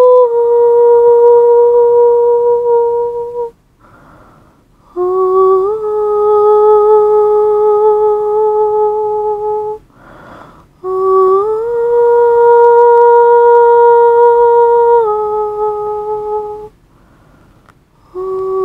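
A single voice humming long held notes, each beginning with a small upward slide in pitch, with a soft breath drawn between phrases about four, ten and seventeen seconds in.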